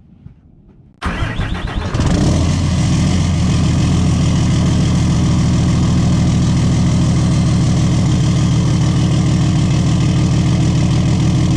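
Diesel four-wheel-drive pickup truck engine cranking for about a second and catching, then idling steadily.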